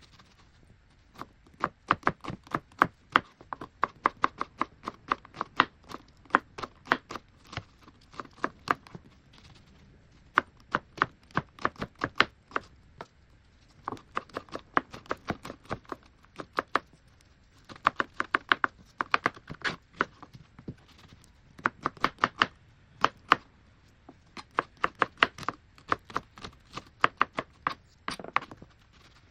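Knife chopping on a cutting board in quick runs of about five strokes a second, pausing briefly every few seconds between runs.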